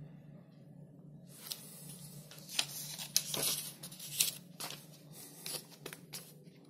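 Paper pages of a booklet being turned by hand, rustling with a run of sharp crackles. It starts about a second in and stops shortly before the end, over a faint low hum.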